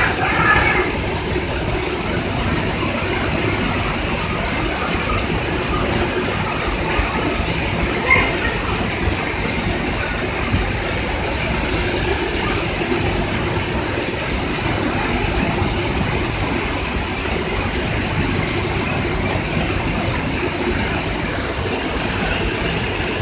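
Steady industrial noise of a robotic spray-painting line running, with the robot arms spraying parts on a conveyor. A brief voice is heard at the start and a single knock about eight seconds in.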